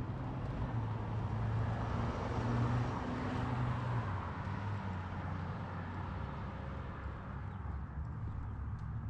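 A motor vehicle passing on the street: tyre and engine noise swells about two to four seconds in and then fades, over a steady low engine hum.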